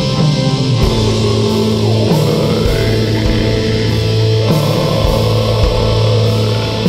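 Funeral doom metal played live: slow, long-held distorted electric guitar chords over a deep low end, with a few spaced drum and cymbal hits.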